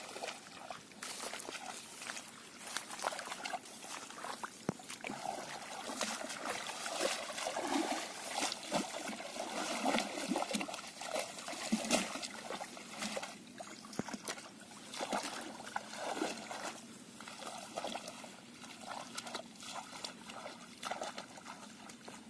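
Shallow water sloshing and splashing irregularly as feet wade through it and hands reach into it.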